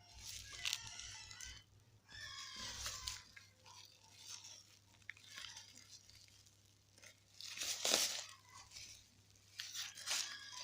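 Parcel packaging being handled and torn open, in several separate crinkling, tearing bursts, the loudest about eight seconds in.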